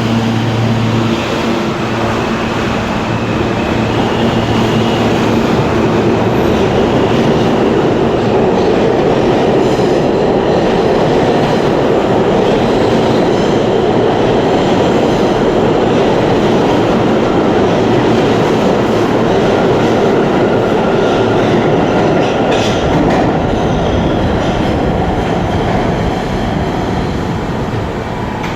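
New York City subway train moving through an underground station: a loud, steady rumble of wheels on rail that eases slightly near the end.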